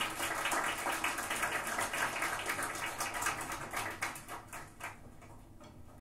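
Audience applauding, a dense patter of claps that dies away over the last couple of seconds.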